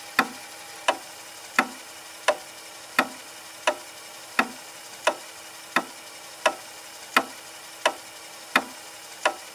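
Clock-like ticking, evenly spaced at about three ticks every two seconds, over a faint steady hiss and low hum.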